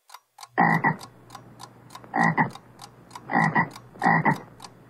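Frog croaking: four short croaks, the first about half a second in, each made of two or three quick pulses. A faint, even ticking runs underneath.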